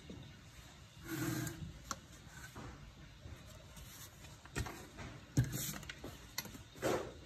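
Kitchen handling noises: a spoon and a glass bowl being handled and a sauce bottle set down on a marble countertop, giving several separate knocks and short rustles, the sharpest a little past the middle.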